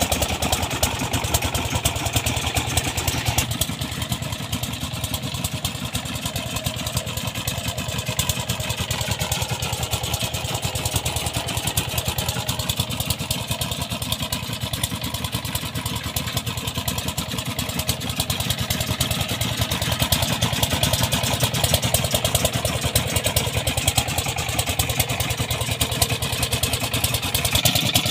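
Petter-type ('Peter') stationary diesel engine running steadily, driving a belt-driven air compressor, with a fast, even chugging beat.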